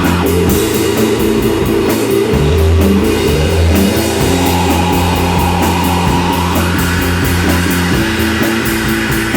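Rock band playing live: electric guitar over bass and a drum kit, with cymbal strokes keeping an even beat.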